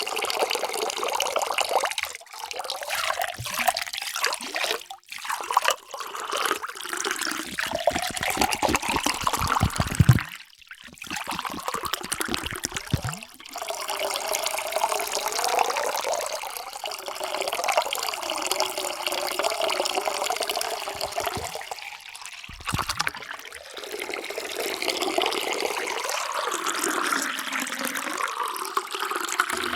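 Water pouring into drinking vessels in several separate pours, with gurgling whose pitch rises as each vessel fills. There are short breaks between pours.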